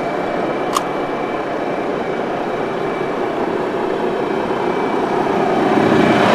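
KAMAZ 54901 truck's diesel engine idling steadily, growing a little louder near the end, with one short click about a second in.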